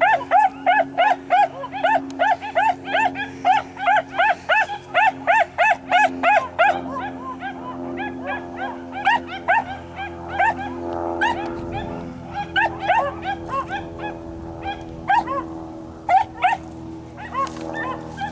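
Beagle baying in quick repeated yelps, about three a second at first, then more spaced out and softer.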